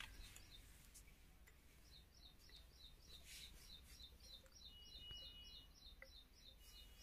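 Near silence: faint, rapid high-pitched chirps repeating evenly several times a second over a low steady hum, with a couple of faint ticks near the end.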